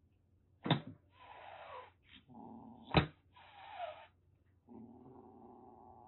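Young calico kitten hissing and spitting in threat: two sudden sharp spits about two seconds apart, each followed by a drawn-out hiss.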